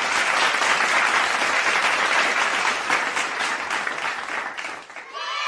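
Crowd applauding, a dense patter of many hands clapping that thins out and fades near the end; right at the end a crowd of voices starts cheering.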